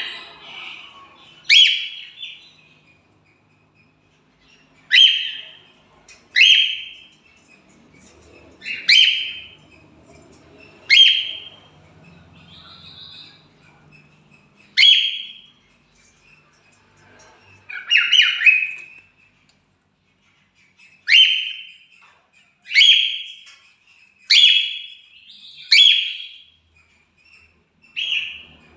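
Pet cockatiels giving repeated loud contact calls: about a dozen short, sharp notes, each falling quickly in pitch, spaced irregularly a second or a few seconds apart.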